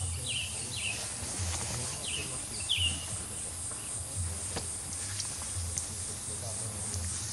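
Insects keep up a steady high-pitched buzz, while a small bird gives short, quick, downward-sweeping chirps, four in the first three seconds, then falls silent.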